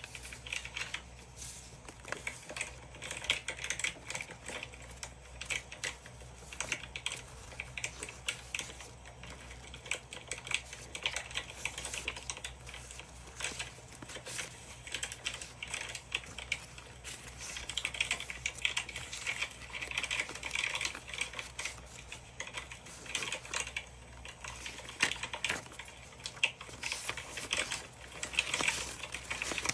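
Sheets of thick vintage-style scrapbooking paper rustling and flicking as a stack is handled and leafed through by hand, a dense run of small quick rustles and taps.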